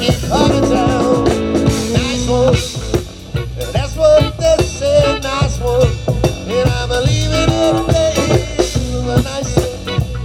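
Live band playing an instrumental passage of a reggae groove: drum kit, bass and guitar, with a bending, wavering lead melody over the beat.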